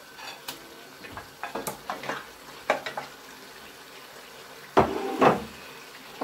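A spatula stirring and clacking against a pot as chunks of cow leg go into a thick pepper stew, with a faint steady sizzle of frying underneath. About five seconds in come two loud knocks close together.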